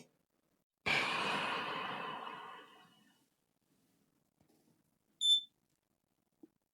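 A long sigh into the microphone, starting suddenly and fading over about two seconds. Then, a couple of seconds later, one short high-pitched beep from a multimeter while a MOSFET is being probed.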